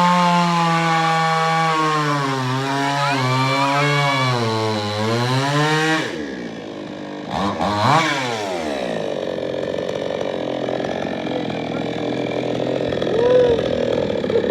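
Two-stroke chainsaw engine running at high revs, its pitch sagging and recovering for about six seconds. About six seconds in the throttle comes off and the revs drop, and the saw runs on at lower, wavering revs.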